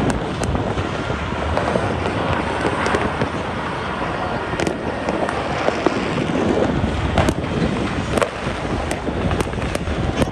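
Fireworks going off across a city: a continuous distant rumble of many bangs, with sharper nearer pops scattered throughout, and wind buffeting the microphone.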